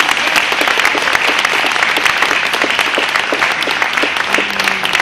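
Audience applauding at the end of a song: many hands clapping together, dense and steady.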